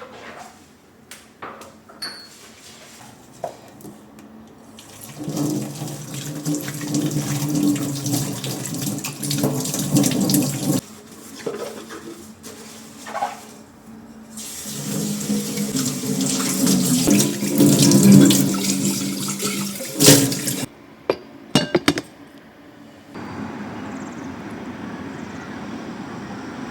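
Tap water running into a sink in two long spells, with a few sharp clinks after the second one; near the end a quieter, steady flow of water.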